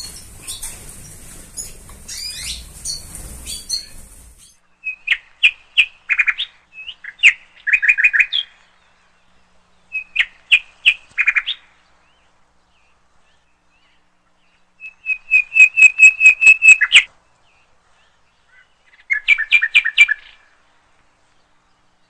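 A small songbird singing in five short phrases of rapid repeated notes, the fourth a fast run of about ten even notes; faint chirping over a low hum comes first.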